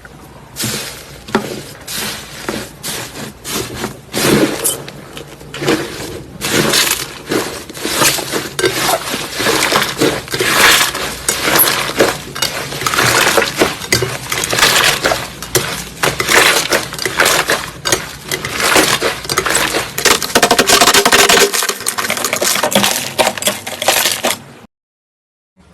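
Slime being squeezed and pressed by hand, giving a dense, irregular run of crackling clicks.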